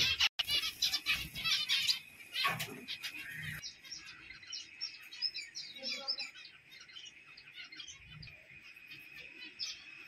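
Small cage finches chirping, many short overlapping calls, busier and louder in the first few seconds and then a quieter twittering.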